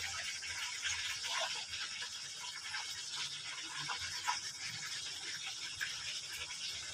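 Chicken livers in spiced gravy sizzling steadily in a wok, with scattered small crackles and pops, as soy sauce goes into the pan.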